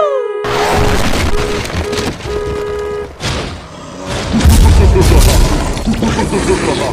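Loud booming and rumbling sound effects over music, with a repeated steady tone in the first few seconds and the low rumbling growing heavier about four seconds in.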